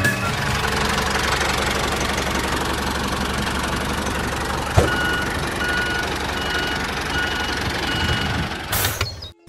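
A vehicle engine running steadily with a fast, even chug. In the second half a reversing alarm beeps about five times at an even pace. A single sharp knock comes about halfway through, and the sound cuts off just before the end.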